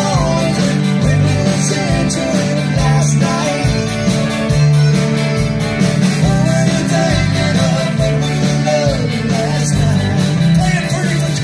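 Live Tex-Mex band playing through a PA: electric guitars, accordion, keyboard, bass and drums in a steady beat, with a man singing lead.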